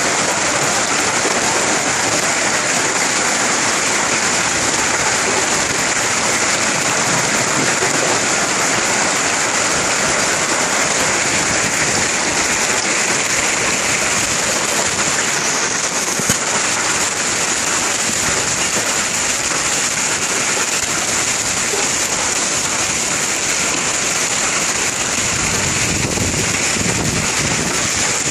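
A heavy hailstorm: hailstones and rain pelting a paved street in a dense, steady, loud hiss and clatter, with one sharp tick about 16 seconds in. Near the end, wind buffets the microphone with a low rumble.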